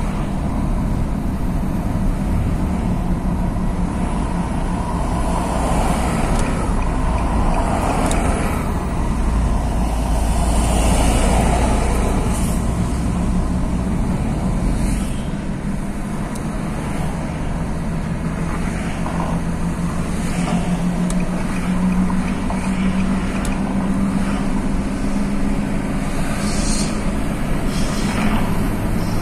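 Road and engine noise inside a moving car's cabin: a steady low rumble of tyres and engine, heavier in the first half.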